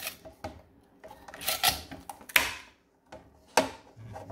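Flexible spring-steel print sheet of a Prusa i3 MK3 3D printer being bent and handled to free a printed part, giving several sharp metallic clacks with scraping and rubbing between them.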